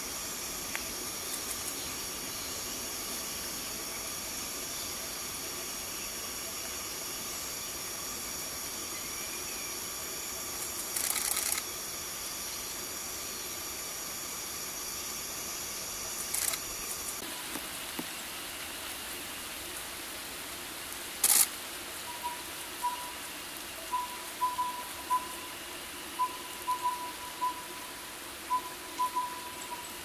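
Forest ambience: a steady high-pitched drone and hiss that cuts off suddenly about halfway through. Three brief loud rushing noises break in, and in the last third a run of short notes on one pitch repeats every half second or so.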